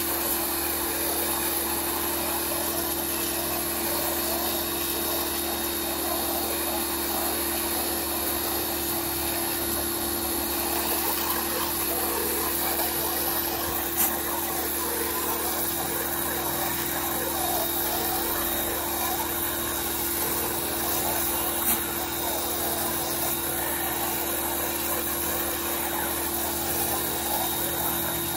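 Pressure washer running steadily while its water jet sprays the house siding, with two short clicks partway through.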